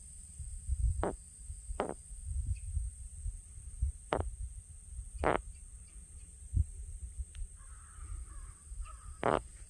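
A crow cawing: five short calls spread out at irregular intervals.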